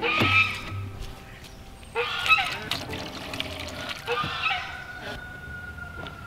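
Three loud calls from farm fowl, about two seconds apart, over faint background music.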